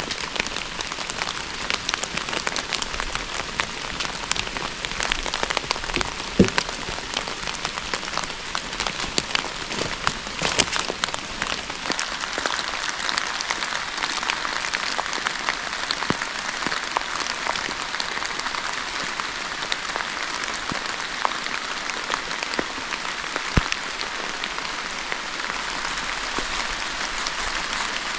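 Steady rain pattering on a surface: a dense hiss of fine drop ticks, with a few louder single drops or snaps standing out here and there.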